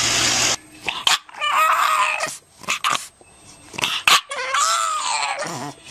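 A dog vocalizing: two drawn-out whining, grumbling calls about a second each, the second sliding down low at its end, with scattered clicks and knocks between. A loud steady noise cuts off abruptly in the first half-second.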